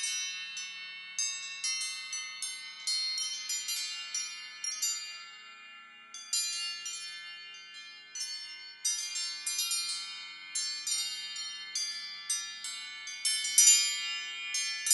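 An Apple iPhone ringtone slowed to 0.7 speed: a dense run of high, struck chime-like notes, each ringing on briefly, quieter in the middle and loudest just before the end.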